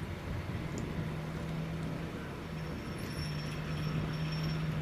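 A vehicle engine running at a steady low hum that drops out briefly midway, with a faint high whine over it in the second half.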